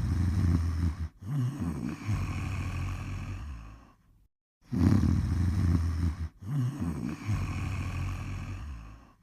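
Snoring: two snores about four and a half seconds apart, each a low rumble of about a second, a brief break, then a longer breath that fades out.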